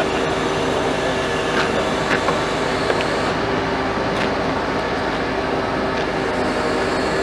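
Liebherr LTM 1750-9.1 mobile crane's diesel engine running steadily, a constant hum with a few faint ticks over it.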